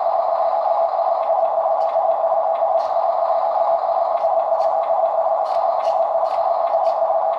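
Small brushed 280 electric motor and plastic gearbox of an RC dump truck whirring steadily as its wheels spin freely, with scattered light ticks over the whir.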